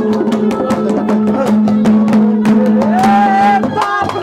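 Instrumental passage of a Haryanvi ragni: quick hand-drum strokes over a steady held low note, with a melody line that rises and holds about three seconds in.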